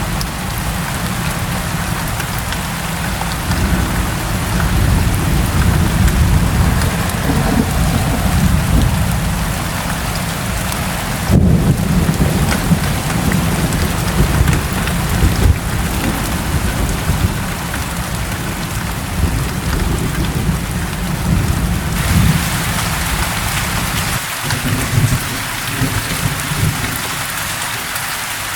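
Steady rain falling, with thunder rumbling low underneath it through much of the stretch. The sound changes abruptly about 11 seconds in, and the low rumble thins out near the end.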